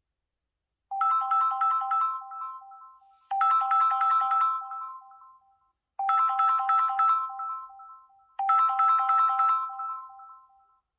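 Samsung Galaxy S23 phone ringtone: a short chiming phrase of rapidly repeated notes on three pitches, played four times about every two and a half seconds, each phrase fading out.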